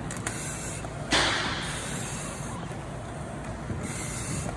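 Firefighter breathing through an SCBA mask regulator, the inhalations coming as soft hisses in a slow rhythm. About a second in there is a sudden louder burst of noise that fades away over about a second.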